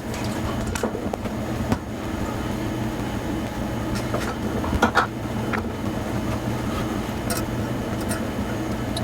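Steady low hum with a few light clicks and taps scattered through it, about three of them.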